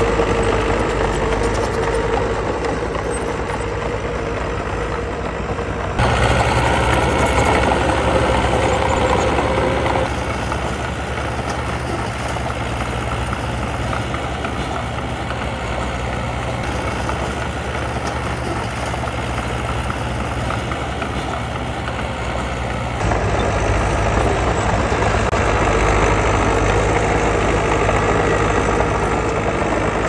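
Diesel engine of earthmoving machinery running steadily. The sound jumps abruptly in loudness and tone twice, about six seconds in and again about twenty-three seconds in.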